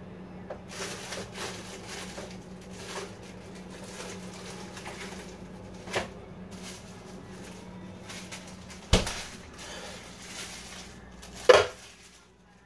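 Kitchen clatter: scattered clicks and short rattles of things being handled, over a steady low hum. The hum stops with a loud knock about nine seconds in, and a second loud knock comes near the end.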